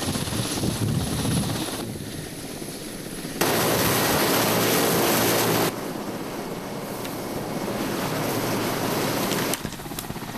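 Military helicopter's rotor and engine noise, a steady rushing that jumps abruptly much louder about three seconds in and drops back a couple of seconds later.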